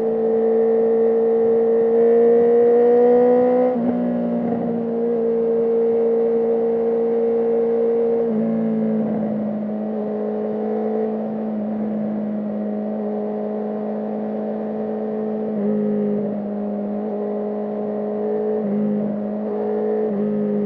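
Motorcycle engine and exhaust heard from on board while riding. The engine note climbs slowly, then drops in a gear change about four seconds in. After that it holds a fairly steady cruising drone, with a few small steps in pitch.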